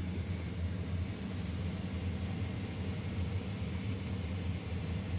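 Steady low machinery hum with an even airy hiss, the running equipment of a Boeing 737 MAX's electronic equipment bay. It holds level with no knocks or changes.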